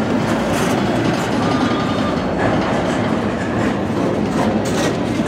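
Freight cars of a long CSX train rolling past at close range: a steady rumble of steel wheels on rail, with a few sharper clicks.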